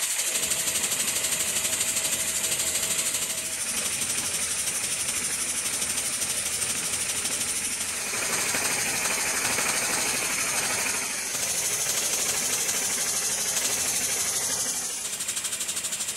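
A LEGO single-piston vacuum engine running on the suction of a vacuum cleaner hose: a fast, steady clatter of the piston and flywheel over the rush of drawn air.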